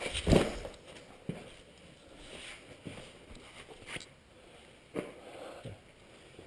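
A caver scrambling through a tight rock passage: a loud scuff and thump against the rock just after the start, then scattered lighter knocks and rustling of clothing and gear.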